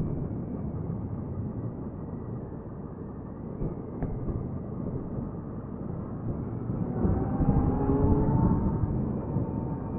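Motorcycle ride heard from the rider's microphone: a steady rush of wind noise over the engine. About seven seconds in, the engine's tone rises for a couple of seconds as the bike speeds up.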